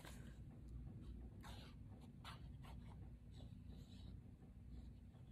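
Faint scratching and rubbing of paper cardstock being handled, a few soft strokes over a low steady hum.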